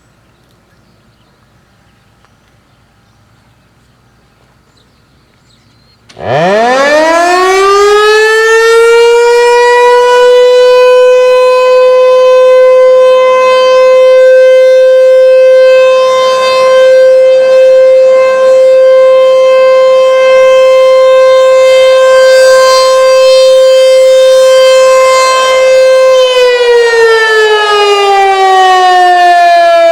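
ASC T-128 electromechanical outdoor warning siren sounding its daily test blast. It starts about six seconds in, winds up quickly to one loud steady tone, holds it, and winds down with falling pitch near the end.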